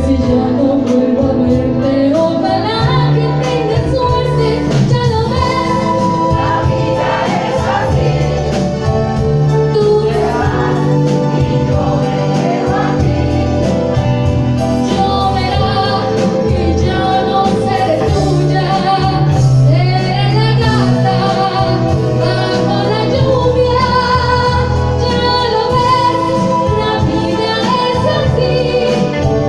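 Live band playing a Spanish-language ballad, with several voices singing the melody together over the accompaniment.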